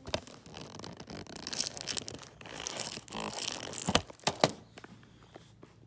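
Plastic wrapping being torn and crinkled off a DVD case, followed by a few sharp knocks of the case about four seconds in.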